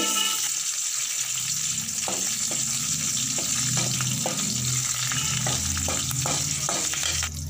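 Curry leaves and green chillies sizzling in hot oil in an aluminium kadai during a tempering, with scattered clicks as a spoon stirs them from about two seconds in. The sizzle drops away near the end.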